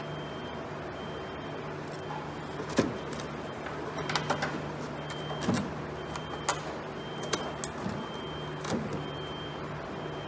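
Scattered sharp knocks and clicks of hands and parts working against a truck's plastic inner fender liner, the loudest about three seconds in, over a steady low hum and a high tone that comes and goes.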